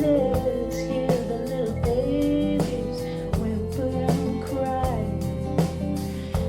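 A country-blues style song playing back through a Yamaha C-5000 preamplifier and M-5000 power amplifier hi-fi system: guitar and drums with a steady beat and sustained, sliding melodic lines.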